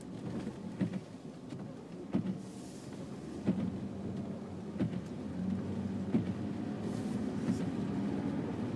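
Car driving on a snow-covered road, heard from inside the cabin: a low rumble of engine and tyres that grows louder as the car picks up speed, with scattered knocks and clicks.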